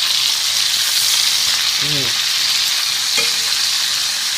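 Chicken legs frying in oil and butter in a large frying pan over medium heat, a steady hissing sizzle.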